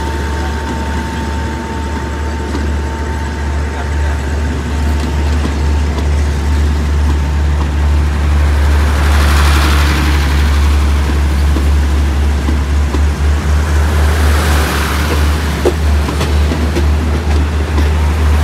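Passenger train coaches rolling past slowly and gathering speed as the train pulls out, with a steady low hum underneath. Wheel-on-rail rushing noise swells up twice, and the whole sound grows louder.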